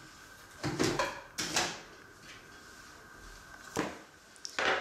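A few short knocks and bumps as a baking tray of buns is handled and set down on a wooden table.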